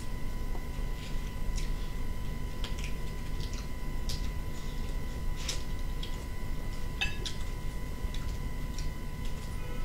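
Cooked shrimp shells cracking and crackling as the shrimp are peeled by hand: a scatter of small, irregular clicks.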